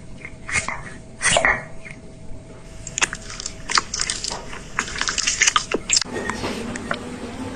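A cat munching and crunching food: a quick run of sharp, crisp crunches and bites, which gives way about six seconds in to a softer, steadier sound.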